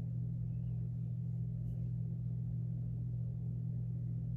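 A steady low hum that holds unchanged throughout, with no speech over it.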